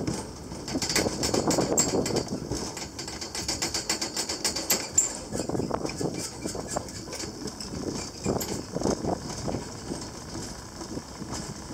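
Gelmerbahn funicular car rattling and creaking as it runs down its steep track, with a rapid run of sharp clicks over the first few seconds and uneven rumbling bumps throughout.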